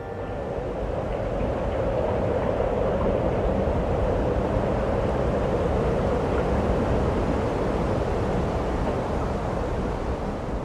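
Steady outdoor ambient noise, a dense rumble and hiss with no music, growing louder over the first couple of seconds and then holding even.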